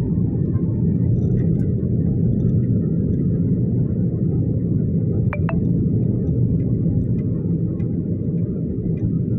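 Steady low rumble of a manual car's engine and road noise while driving along, held in third gear. Two quick clicks about five seconds in.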